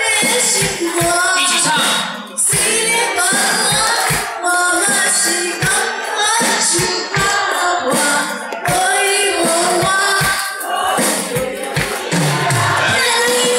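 Live band playing a Mandarin pop song over a PA system, with a woman singing lead over a steady drum beat.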